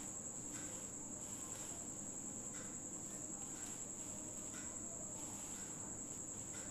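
Cricket trilling continuously: a steady, high-pitched, unbroken tone with no pauses.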